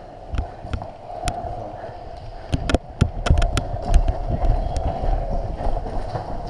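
Footsteps of a player moving on foot, with scattered sharp snaps, several of them close together about halfway through.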